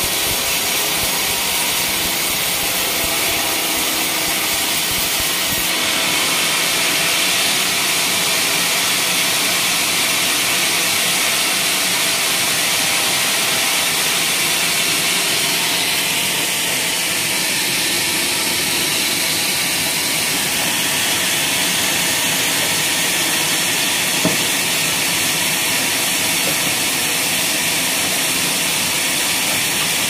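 Homemade band sawmill ripping a log of waru (hibiscus) wood: a steady, loud hiss of the blade running through the timber. About six seconds in the low rumble falls away and the hiss turns brighter.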